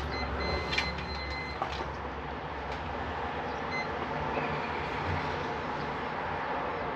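Weiser SmartCode keypad deadbolt beeping while a user code is programmed in. A steady beep lasts about a second and a half just after the start, with a few keypad button clicks, then a short beep comes about four seconds in.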